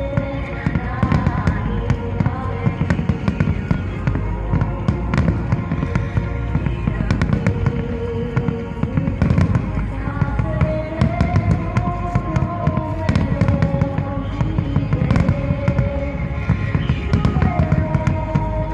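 A large fireworks display: a dense, unbroken barrage of shells bursting and crackling, with a slow melodic song playing beneath the bangs.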